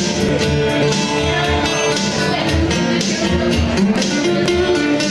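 A small live band playing a song, guitars to the fore over a steady beat.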